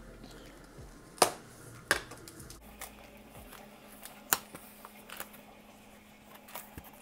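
Cardboard shipping box being handled and its flaps pulled open: a few sharp clicks and knocks, the loudest about a second in, over quiet rustling.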